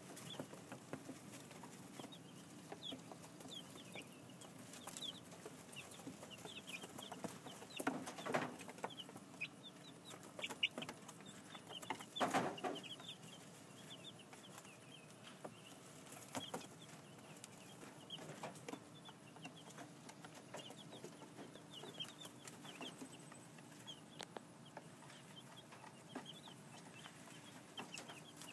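Two-week-old chicks peeping: a constant stream of short, high, downward-slurred cheeps. There are two louder rustling scuffs about eight and twelve seconds in.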